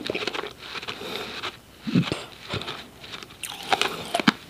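Close-miked mouth sounds from chewing the last of a mouthful of powdery refrozen ice: soft scattered crunches, a short low thump about two seconds in, and a few sharp clicks near the end.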